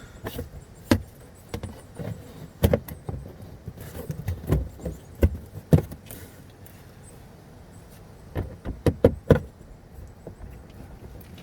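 Irregular plastic clicks and knocks as the wheel-well access flap is fitted back and its plastic screws are driven in with a Phillips screwdriver, with a quick run of knocks near the end.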